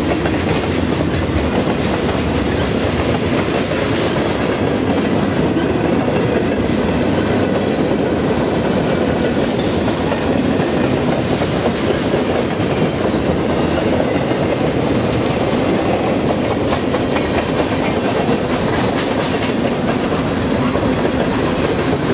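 Freight train cars rolling past close by: a steady rumble and rattle of steel wheels on the rails, with clickety-clack ticks as the wheels cross rail joints.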